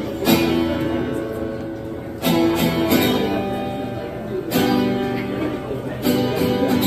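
Acoustic guitar strumming chords, a new chord struck about every two seconds and left to ring out, four times.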